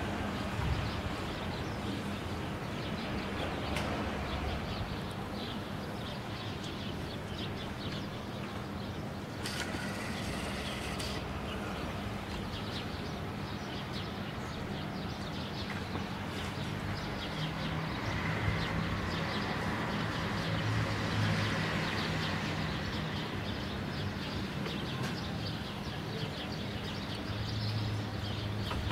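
Outdoor urban ambience: birds chirping among steady background noise, with a low vehicle engine hum that swells a little past halfway and again near the end.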